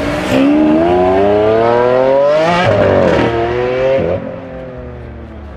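Mazda RX-7's naturally aspirated, peripheral-ported 26B four-rotor engine revving. The pitch climbs steadily for about two and a half seconds, drops sharply with a quick blip, then falls about four seconds in to a quieter, steady lower note.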